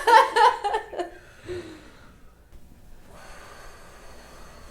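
A person laughing breathily with sharp intakes of breath for about the first second, then quiet room tone with a faint steady hum.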